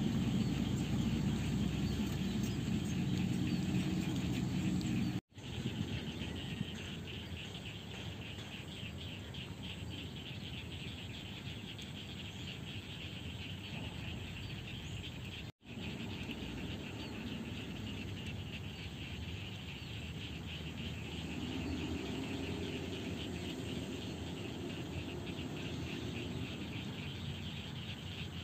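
Diesel dump truck engine labouring through mud for about the first five seconds. After a sudden cut, crickets chirr steadily, with a truck engine running low underneath.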